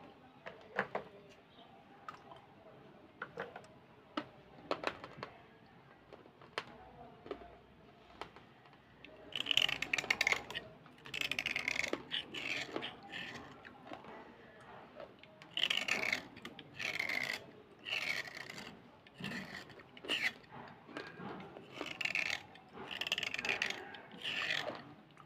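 Slate pencil being scraped with a small blade: a run of short, dry scraping strokes that starts about a third of the way in, after a few light clicks of handling.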